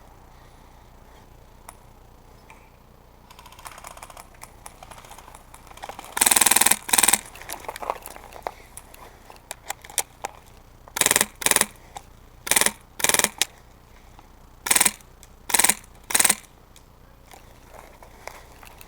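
Airsoft electric gun firing short full-auto bursts close by: nine loud bursts, two about six seconds in and seven more in quick succession later. Fainter rapid fire is heard between them.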